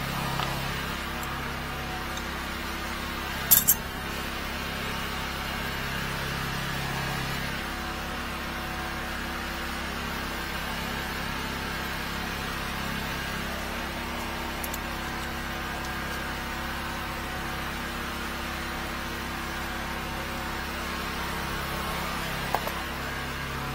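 Engine of a 13-horsepower high-pressure sewer jetter running steadily with an even drone. Sharp metal clinks cut through it, a quick double one about three and a half seconds in and a single one near the end.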